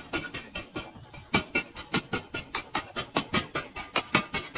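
Rapid hammer blows on a red-hot spring-steel knife blank over an anvil, about four metallic strikes a second with a short ring after each.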